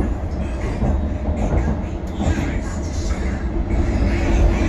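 London Underground train running along the track, with a heavy low rumble and rattling wheel-on-rail noise as it takes the curves.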